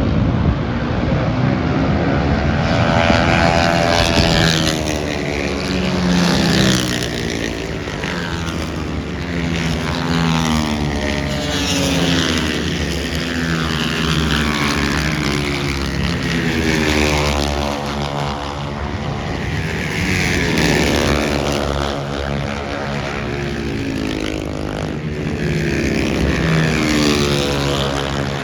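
Propeller-driven aircraft engines droning continuously, with a swirling, phasing tone that sweeps up and down several times as the aircraft pass and circle.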